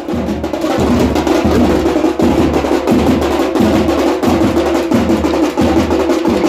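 A group of stick-beaten drums played together in a fast street rhythm: rapid sharp strikes with a heavy low beat about every two-thirds of a second.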